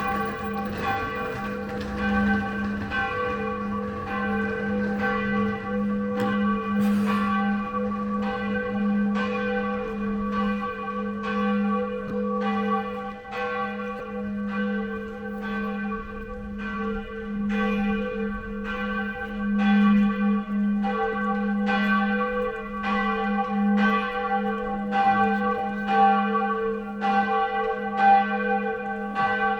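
Church bells ringing: strokes repeating about once a second, each one's hum carrying on into the next.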